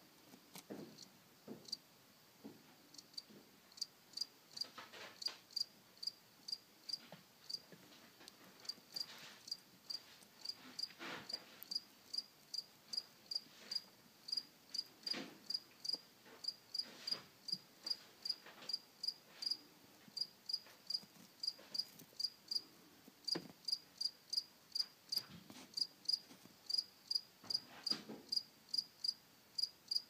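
A male field cricket chirping by rubbing its raised wings together. The short, high chirps come sparse and uneven at first, then settle into a steady run of about two to three a second from about halfway in.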